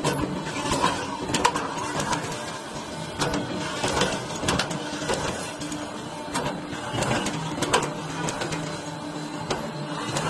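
Light gauge steel C/U channel roll forming machine running, with its servo punching stations striking the moving steel channel in repeated sharp clacks, roughly one a second, over the steady hum of the machine.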